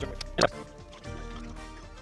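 Background music with a steady melody, and one short loud sound about half a second in.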